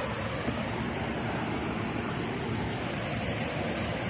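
Steady rushing of river water over a small waterfall, an even hiss with no breaks.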